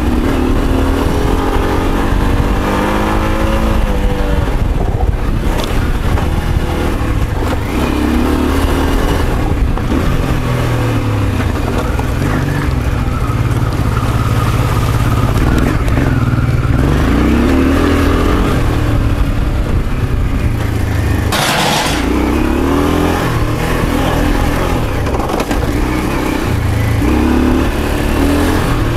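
Honda Africa Twin V-twin engine pulling under load on a steep dirt climb, its revs rising and falling with throttle and gear changes, with a brief hiss a little under three quarters of the way through. The owner reports an ignition fault, hopefully just worn spark plugs, that leaves the engine low on power and response.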